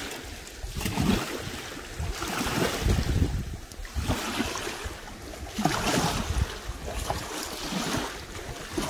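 Wind blowing across the microphone, with small waves washing in at the water's edge in swells every second or two.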